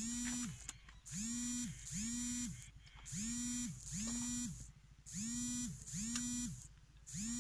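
A synthetic two-note sound repeating about every two seconds, each note sliding up in pitch at its start and down at its end.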